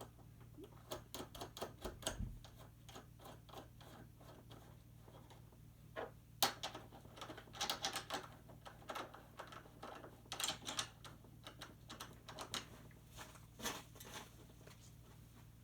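Irregular light clicks and taps, some in quick runs, as bolts are fitted and tightened to hold a solar panel to its brackets.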